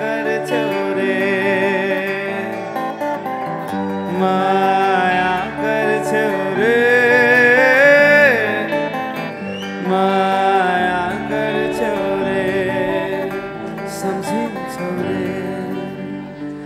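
Live band playing a Nepali pop song: strummed acoustic guitar over electric guitar, bass guitar and drums, with a held melody line that rises and falls near the middle.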